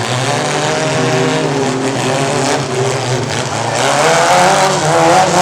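Several compact race trucks' engines running together, their pitches wavering as they are driven, rising and getting louder about four seconds in as they accelerate.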